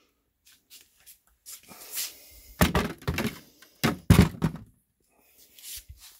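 Thunks and knocks from a vending machine's body being taken off and handled, a cluster of the loudest knocks in the middle.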